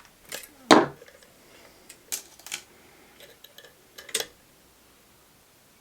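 Short sharp metal clicks and clacks from working the bent-wire trigger of a homemade ice-fishing jaw jacker, the loudest under a second in, a pair around two seconds in and another pair near four seconds.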